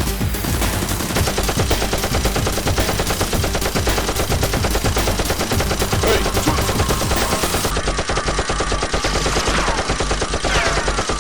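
Continuous rapid automatic gunfire, a dense stream of shots with no break.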